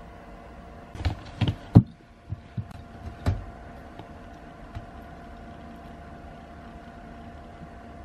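Knocks and thumps of cats moving in and out of a plastic basket on a platform scale: a quick run of knocks about a second in, the loudest near the two-second mark, then a few lighter knocks around three seconds. A steady faint hum runs underneath.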